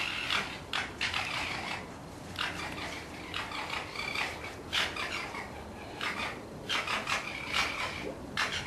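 Fox vocalising: a run of short, high-pitched calls, roughly one every second.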